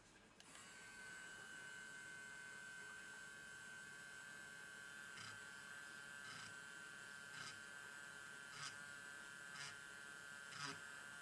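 Faint, steady, high-pitched electrical whine that sets in about half a second in, with a light tick roughly once a second in the second half.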